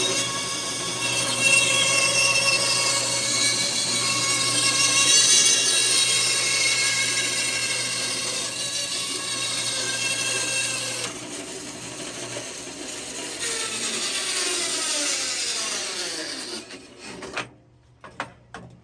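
Bandsaw running and cutting a circle out of a wooden turning blank rotated on a circle jig's pivot pin. About two-thirds of the way through, the cutting noise drops away. The saw is then switched off, its pitch falling as the blade winds down, and a few knocks follow near the end.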